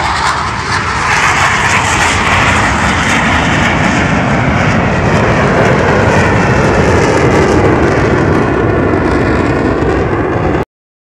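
Loud jet roar of a Blue Angels F/A-18 Hornet passing over, the sound deepening steadily in pitch as it goes by. It cuts off suddenly near the end.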